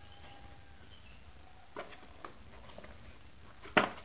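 Cardboard toy box being handled and turned over in the hands, giving a few light taps and knocks, the loudest near the end.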